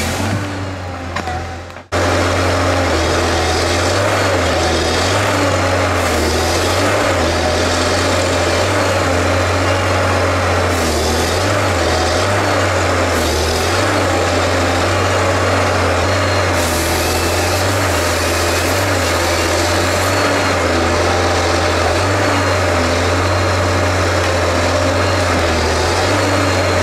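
Rottne H20 harvester's 254-hp diesel engine running steadily, a loud deep drone whose low note wavers slightly with load. A quieter stretch cuts off abruptly about two seconds in, where the engine sound begins.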